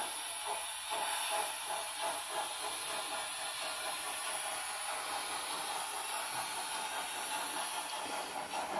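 Märklin H0 BR 85 model locomotive, fitted with a five-pole motor and an ESU LokPilot 5 decoder, running on the layout out of sight: a steady hiss with rhythmic clicking of its wheels over the rail joints, most regular in the first few seconds.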